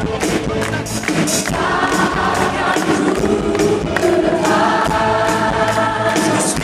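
A choir singing a gospel praise song with band accompaniment: long held chords over a steady drum beat.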